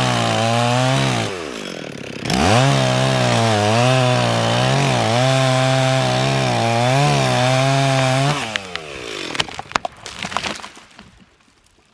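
Two-stroke chainsaw running at full throttle, cutting into elm wood, with a brief drop in revs about a second in. The revs fall away about eight seconds in, followed by a few sharp cracks before the saw goes quiet.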